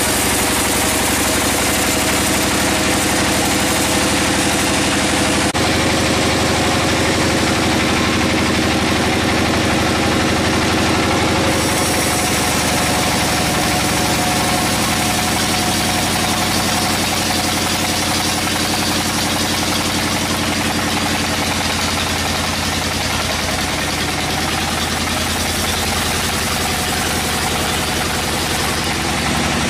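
A large band sawmill running steadily, its band blade sawing through a hardwood log, with a constant machine hum and hiss. The sound shifts a little about twelve seconds in.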